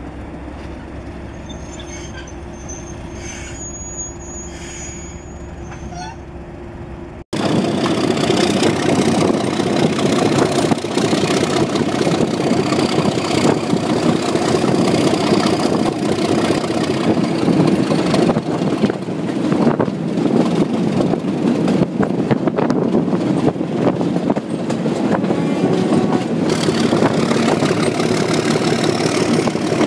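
A steady low hum for the first seven seconds, then, from a sudden cut, the loud, continuous sound of Class 37 diesel locomotives' English Electric V12 engines working hard, heard from a carriage window with wind and rail noise mixed in. A faint high whistle drifts up and down over the engine noise.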